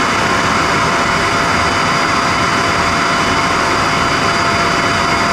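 Self-emptying dock of a Beko RoboSmart robot vacuum, its suction motor running steadily and quite loud as it draws the dirt out of the robot's dustbin into the station, a constant rushing hum with a few steady whining tones in it.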